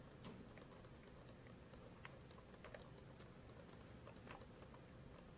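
Faint, irregular keyboard typing clicks over quiet room tone.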